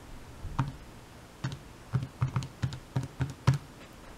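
Buttons pressed on a calculator: about eight light taps, two spaced out early, then a quicker run in the second half as a sum is keyed in.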